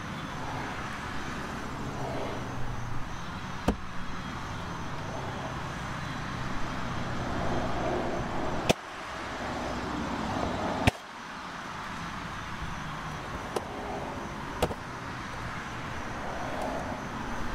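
Plastic retaining clips snapping loose as the carpeted footwell side trim panel of a Tesla Model 3 is pried off with a plastic trim tool: about five sharp clicks, the two loudest around the middle, over steady background noise.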